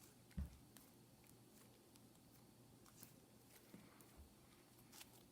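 Near silence, with a faint low bump about half a second in and a few faint soft ticks as runny slime is handled.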